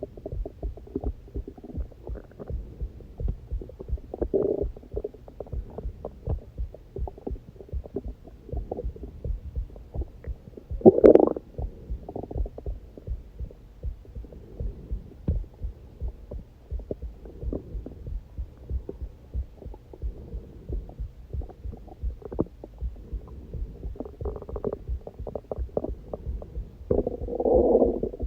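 A person's heartbeat thudding steadily, with hunger growls from their stomach over it: a gurgle about four seconds in, the loudest one about eleven seconds in, and a longer rumble near the end.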